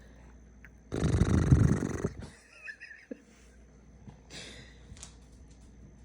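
A rough, snore-like snort lasting about a second, starting about a second in, with a fainter one about four seconds in.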